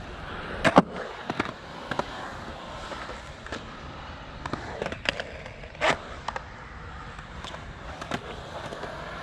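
Skateboard wheels rolling on concrete, broken by a series of sharp clacks and knocks of the board against the ground; the loudest is about a second in.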